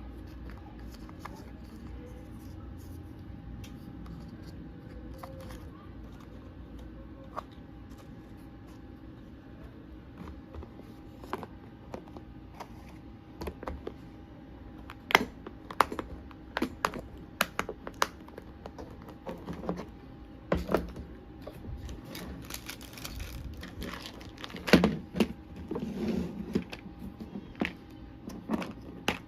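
Faint steady hum at first, then from about halfway a run of sharp clicks and taps, with a short stretch of rustling plastic, as small items and their packaging are handled.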